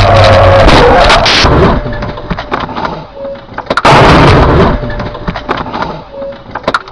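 Car crash heard from inside the crashing car: a loud crunching impact with a falling screech at the start, scattered knocks and clatter, then a second loud crash about four seconds in as the car goes over onto its side.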